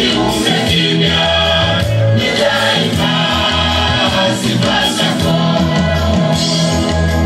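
Gospel choir singing in chorus over a strong, rhythmic bass line.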